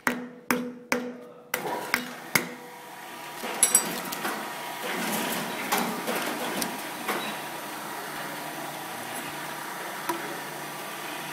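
A few sharp, ringing metallic knocks on a metal can, about two a second, then the can's liquid resin component pouring steadily into a plastic container.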